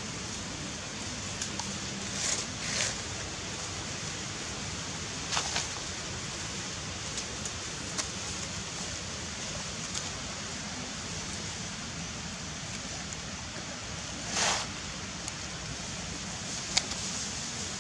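Steady outdoor hiss with a few brief rustles, likely dry leaves shifting as macaques move on the leaf-covered ground.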